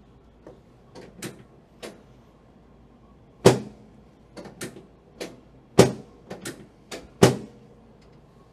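Sharp knocks and clacks from a chiropractic extension adjustment at the L1 vertebra on a treatment table. Light taps come in the first two seconds, then three loud knocks about every second and a half, with smaller ones between.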